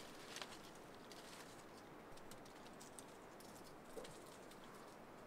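Faint rustling of apple-tree leaves and twigs with scattered light clicks, as apples are picked by hand from the branches.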